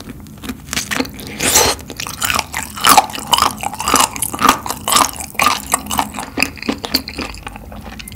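Close-miked crunching bites and chewing of spicy sauced fried chicken: many short, irregular crisp crunches as the coated pieces are bitten and chewed.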